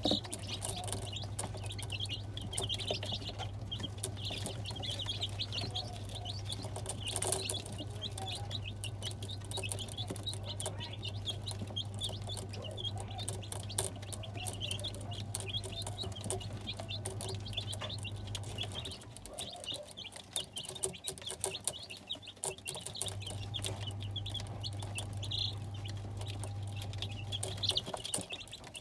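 A brood of young chicks peeping, many short high cheeps throughout. Under them runs a steady low hum that cuts out about two-thirds of the way through, comes back a few seconds later, and stops again near the end.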